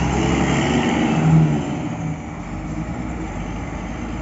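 Hino RN285 coach's diesel engine pulling away, loudest about a second in, then fading as the bus drives off.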